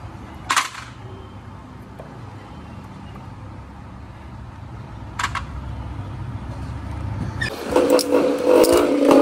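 Two sharp metallic clinks from tools and parts on the timing side of a Royal Enfield Bullet engine under repair, over a low steady rumble. Near the end a louder steady droning tone comes in and is the loudest sound.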